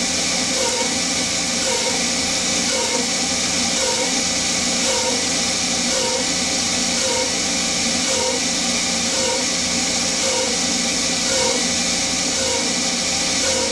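Hercus PC200 benchtop CNC lathe turning 6061 aluminium with an air mister blasting at the cut: a steady loud hiss of air over the hum of the spindle and an air compressor. A faint pulse comes about once a second.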